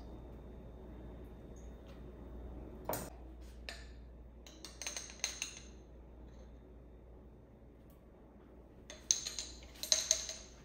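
Kitchen utensils and dishes clinking: a single knock, then two short bursts of sharp, ringing clinks, one about halfway through and one near the end.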